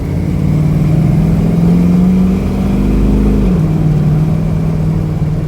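1978 GMC Jimmy's 461 cubic-inch big-block V8 pulling under load with a jet boat in tow. The engine note climbs steadily, drops sharply about three and a half seconds in at a gear change, then runs on evenly.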